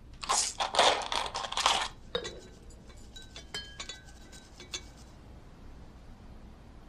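A short burst of clattering for about two seconds, then a few scattered light clinks that ring briefly, like small hard objects knocking together.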